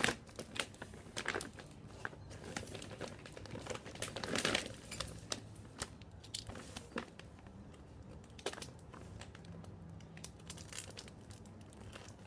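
Paper and plastic packaging crinkling and rustling as it is handled, with a louder burst of crinkling about four seconds in, then sparser rustles and clicks.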